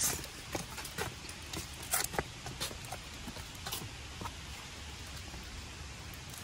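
Irregular light footsteps crunching on a dirt and leaf-litter track, as scattered sharp clicks that thin out after about four seconds, over faint steady outdoor hiss.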